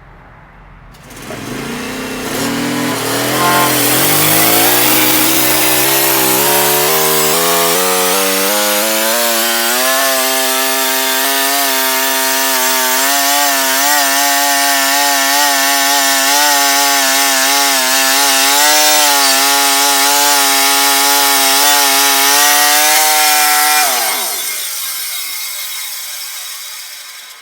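Sawmill engine throttling up, rising in pitch over several seconds, then running steadily under load as the blade saws through a red oak log, before winding down with a falling pitch near the end.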